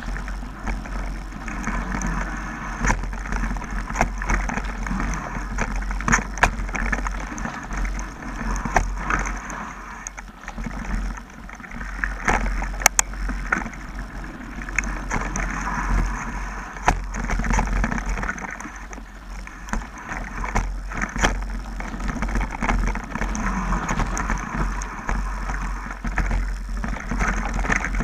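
Mountain bike rolling fast down a dirt trail: wind rumble on the microphone and tyre noise on the dirt, with frequent sharp clicks and rattles as the bike jolts over bumps.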